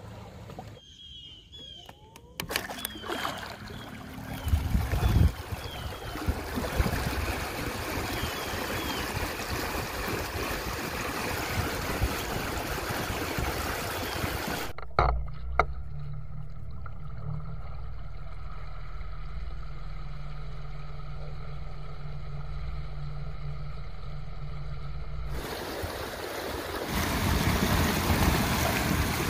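Water rushing and splashing past a small aluminium jon boat running at top speed under an ePropulsion Spirit 1.0 Plus electric outboard, with wind on the microphone. The sound changes abruptly a few times, and for about ten seconds in the middle a steady low hum takes over from the splashing.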